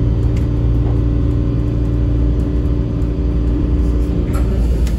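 Suspended monorail car running, heard from inside the front cab: a steady low running hum with a few steady drive tones over it, which stop with a click about four seconds in.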